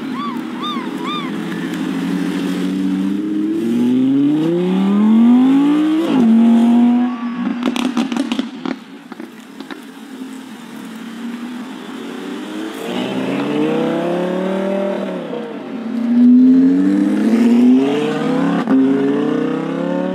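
V10 supercar engines, an Audi R8 V10 Plus and Lamborghini Gallardo and Huracán Spyders, accelerating hard. The pitch climbs and drops several times as the gearbox upshifts quickly. About eight seconds in there is a brief cluster of sharp cracks.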